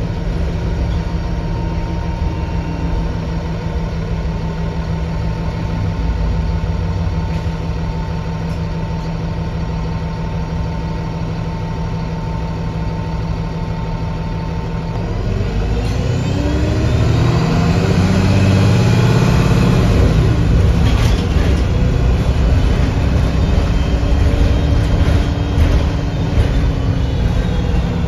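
2008 Nova Bus LFS city bus heard from inside the cabin: the engine runs at a steady idle for about fifteen seconds, then the bus pulls away and the engine and drivetrain climb in pitch and grow louder as it accelerates.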